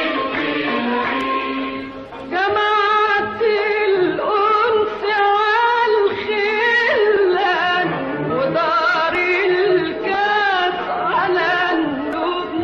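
A voice singing an Arabic song, holding long notes with a wavering, ornamented melody. The singing dips briefly about two seconds in, then carries on.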